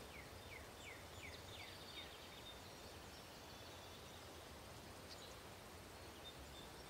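Near silence: quiet outdoor background with a bird's faint, short falling chirps, two or three a second, in the first couple of seconds.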